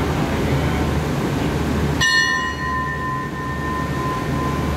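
A station bell struck once about two seconds in, its clear tone ringing on and slowly fading, over the steady low hum of the standing express train's idling GEA diesel locomotive.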